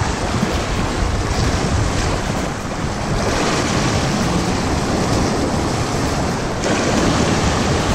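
Sea surf washing and splashing against shoreline rocks, a steady noisy wash, with wind buffeting the microphone.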